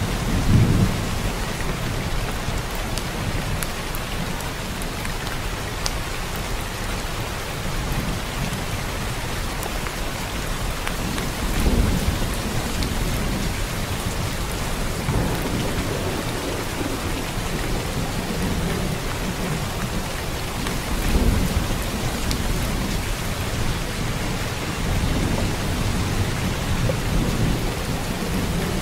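Steady heavy rain with low thunder rumbling and swelling several times, the loudest rolls about 12 and 21 seconds in.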